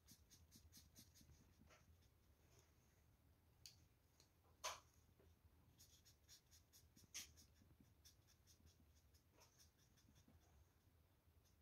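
Felt-tip marker scribbling on paper in rapid short strokes, faint, with two sharper clicks about five and seven seconds in.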